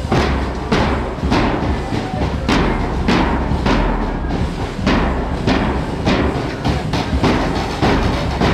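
A children's marching drum band playing: large bass drums struck with beaters and smaller side drums beating a steady marching rhythm, a strong beat about every two-thirds of a second over continuous drumming.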